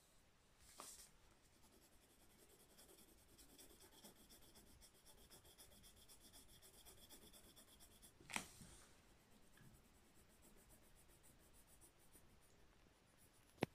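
Faint scratching of a pencil on paper in rapid, repeated strokes as a drawing is traced and shaded. Two short knocks break in: a soft one about a second in and a louder one around eight seconds in.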